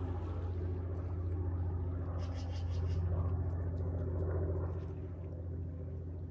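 A steady low engine hum, even and unbroken. About two seconds in comes a brief run of rapid high ticks or chirps.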